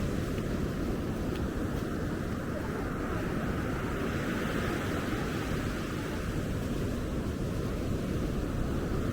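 Steady roar of ocean surf breaking on the beach, mixed with wind buffeting the microphone, with no distinct events.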